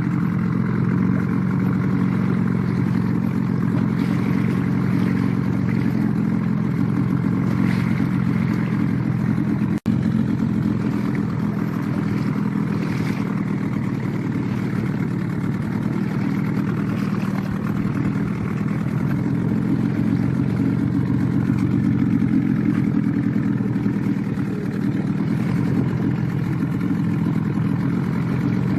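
Small boat's motor running steadily under way, an even low drone that holds the same pitch throughout, briefly cut off near the ten-second mark.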